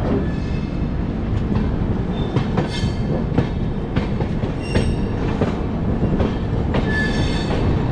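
Bangalore Rajdhani Express coaches rolling through a station yard: a steady rumble of wheels on track with irregular clicks over rail joints and points, and brief wheel squeals about three seconds in, near five seconds and about seven seconds in.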